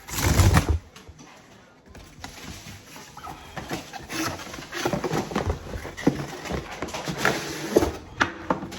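Shoe box being handled and opened: a thump at the start, then cardboard and paper rustling with small knocks and clicks.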